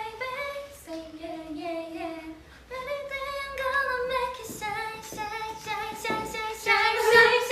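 Young women singing a melodic line in clear held notes, with no beat or instruments standing out; the singing grows loudest near the end.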